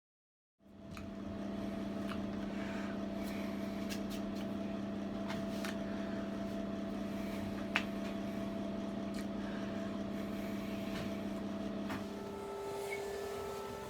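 Samsung washing machine running: a steady motor hum with a few light clicks, which changes pitch about twelve seconds in.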